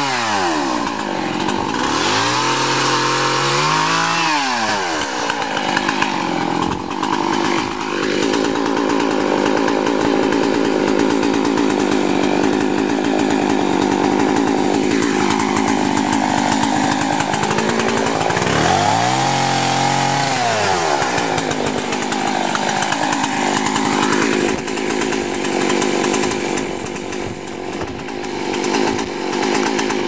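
Chainsaw cutting up the branches of a felled tree. It runs at high revs for most of the time and drops toward idle and revs back up a few times: near the start, around four seconds in, and about two-thirds of the way through.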